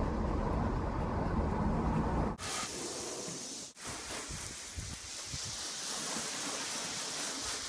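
A low, muffled rumble inside a car cabin for about the first two seconds. It then cuts to a steady hiss of water spraying from a hose onto a car's body panels.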